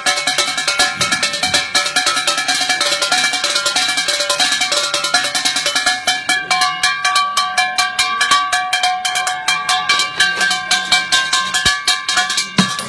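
Street drummer playing a fast, techno-style rhythm: rapid dense strikes with ringing metallic tones over them. Deeper drum beats join near the end.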